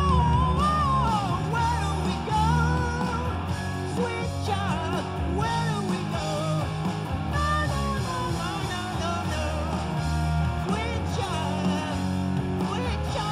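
Live rock performance: a man singing with a strong voice while playing a Les Paul-style electric guitar, with a steady low bass line underneath.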